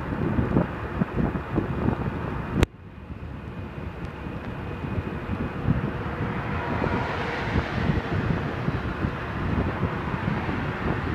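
Wind buffeting the microphone over road rumble while riding along a highway. A sharp click comes about two and a half seconds in, after which the rumble is quieter. A broad rushing sound swells and fades a little past the middle.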